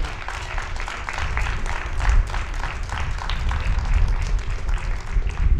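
Crowd applauding, a dense run of many hands clapping.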